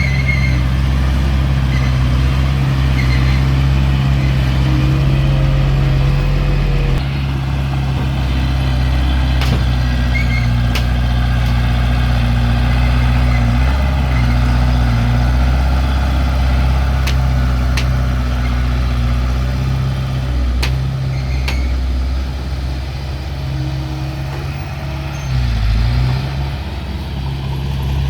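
Diesel engine of heavy earthmoving equipment running steadily, with a few sharp metallic clicks. The engine note dips briefly near the end.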